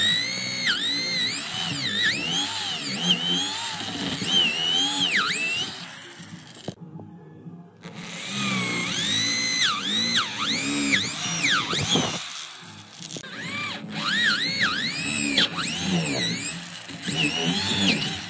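Electric power tool whining as it works wood, its pitch dropping sharply and recovering again and again as it is loaded and eased off. It stops for about a second partway through, then starts again.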